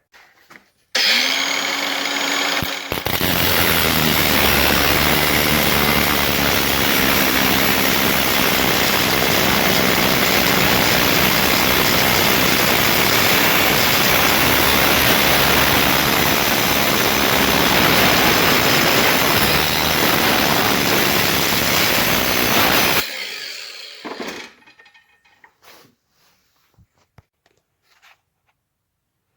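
Battery-powered cutting tool spinning up about a second in, then cutting through the brass body of a Sure Dry water line's shut-off fitting with a loud, steady grinding noise for about twenty seconds. It stops and winds down near the end, leaving a few small handling sounds.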